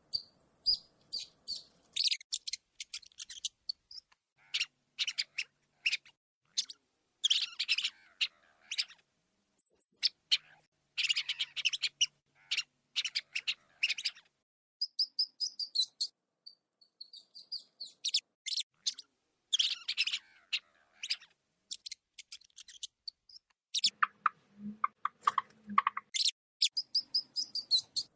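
Rats squeaking: irregular runs of short, sharp, very high-pitched squeaks with brief silences between them. Near the end comes a lower-pitched squealing.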